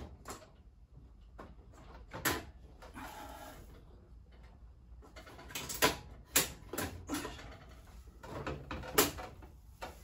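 Irregular knocks and clicks of parts and tools being handled during reassembly work. There is a sharp knock about two seconds in and several more in the second half.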